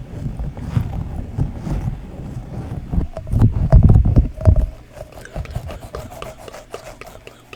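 Close-miked hands rubbing, squishing and tapping sticky fidget toys, with heavy low thumps and rumble that peak about three to four and a half seconds in, then lighter clicks and taps.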